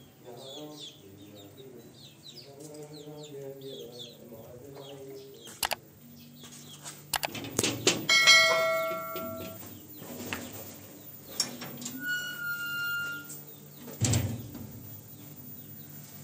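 Hens clucking with small birds chirping, then knocks and clatter of kitchenware, with two metallic rings of several clear tones: a long one about eight seconds in and a shorter one about twelve seconds in.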